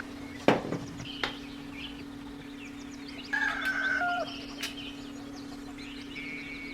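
Chickens clucking, with one drawn-out call a little past the middle of the clip. A steady low hum runs beneath, and there is a single sharp knock about half a second in.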